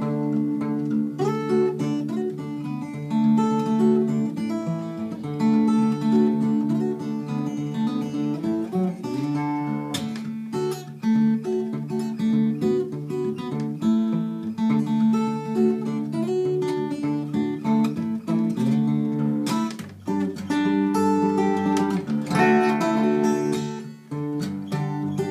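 Steel-string acoustic guitar played fingerstyle in open C sus4 tuning (CGCGCD): a plucked melody runs over low notes that ring on.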